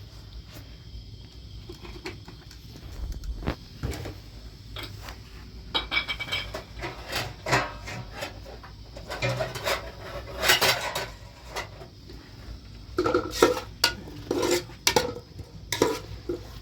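Dishes and metal utensils clinking and clattering, a run of sharp knocks and clinks, some ringing briefly, starting a few seconds in after a quiet stretch.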